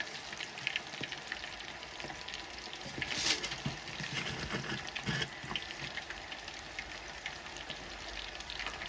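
Chicken pakodi pieces deep-frying in hot oil, a steady crackling sizzle with a brief louder burst about three seconds in.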